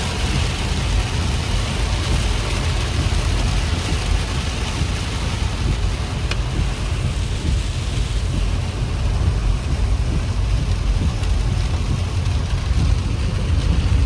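Heavy thunderstorm rain falling steadily over a deep low rumble of wind and thunder, growing a little louder near the end.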